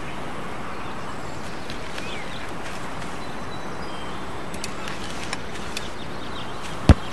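Outdoor park ambience: a steady hiss of background noise with a few faint bird chirps, and a single sharp knock near the end.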